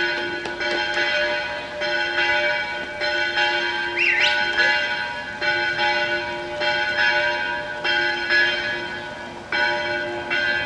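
Church bells ringing, a new stroke about every second over a sustained hum of ringing tones, with a short rising chirp about four seconds in.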